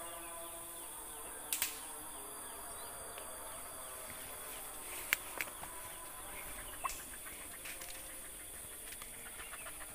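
Steady high-pitched insect buzz with footsteps rustling through grass and dry cut stalks. A few sharp snaps stand out, about one and a half, five and seven seconds in. Small rustling ticks follow near the end.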